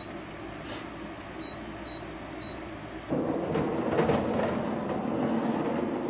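Dehumidifier running with a steady fan noise, its control panel beeping four times as its buttons are pressed; about halfway through the running noise steps up louder.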